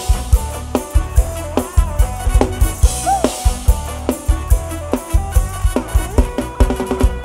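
Live Thai Isan pop band music from a rot hae sound-truck stage: an instrumental passage driven by the drum kit, with a steady kick drum and snare over bass and keyboard. A run of quick drum hits comes near the end.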